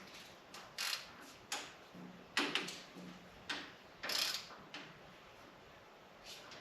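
A string of short, irregular clicks and light knocks from hand tools and parts being handled while a motorcycle's fork tubes are set in the triple clamps.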